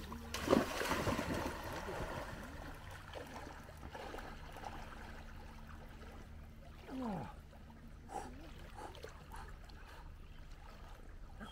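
A dog leaps into shallow lake water with a loud splash about half a second in, followed by softer sloshing and lapping of water as it swims. A short falling call is heard about seven seconds in.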